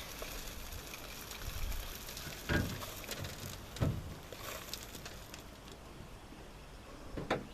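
Irregular scraping and crackling with scattered knocks, typical of dry concrete mix being worked in a wheelbarrow, with two louder thumps about two and a half and four seconds in.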